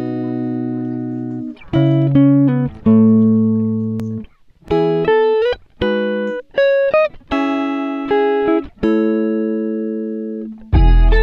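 Background music: a guitar playing single plucked notes and held chords, with a few notes bending in pitch. A fuller section with a deep bass comes in near the end.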